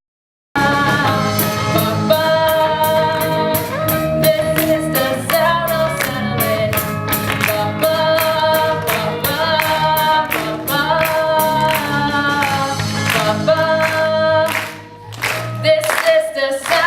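A band playing an upbeat rock song with singing and a steady drum beat. The music cuts out for about half a second right at the start, then comes back in full.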